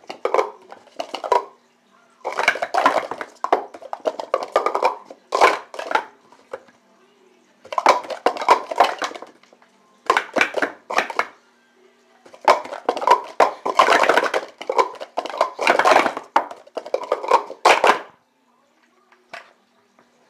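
Plastic sport-stacking cups clattering as they are rapidly stacked up and down into pyramids on a stacking mat, in quick bursts of clicks with short pauses between them, ending in a couple of single clicks.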